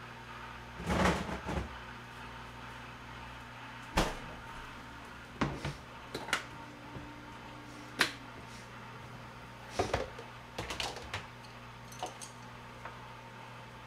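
Knocks and clicks of a lidded kimchi container being handled: set down on the counter, its lid unclipped and lifted off, then chopsticks working in it, over a steady low hum.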